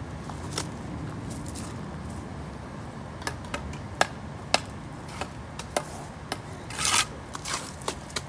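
Steel mason's trowel tapping and scraping on concrete slump blocks and on a mortar board while mortar is spread and scooped: a string of sharp irregular clicks and a longer scrape about seven seconds in, over a steady low rumble.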